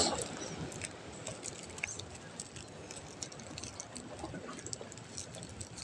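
Faint rustling and scattered light clicks of a plastic bag of fishing bait being handled.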